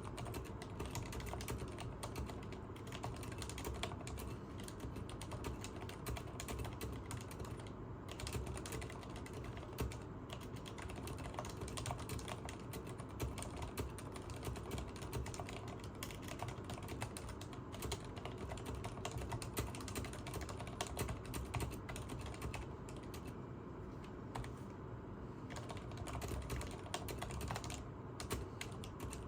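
Continuous fast typing on a Leopold FC980MS mechanical keyboard with Cherry MX Silent Red linear switches: a dense run of soft, muted keystrokes with no sharp clack.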